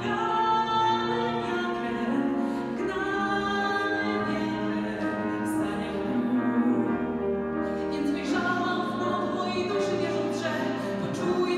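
Woman singing a musical-theatre song in Polish, accompanied by a grand piano.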